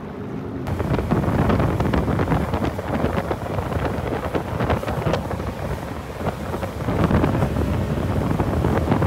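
Wind rushing over the microphone of a motorboat running at speed, with the boat's rushing wake beneath it; the rush gets louder under a second in, as the boat gets under way.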